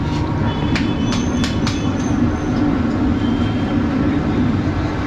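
Steady low mechanical rumble of busy street traffic, with about four sharp clicks or knocks between one and two seconds in.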